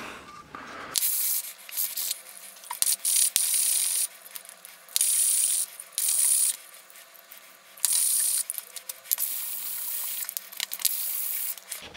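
A 3D-printed PLA part being rubbed back and forth on a sheet of sandpaper, sanding its joining faces flat for gluing. It is a run of hissing, rasping strokes, each lasting under a second, with fainter scraping between them.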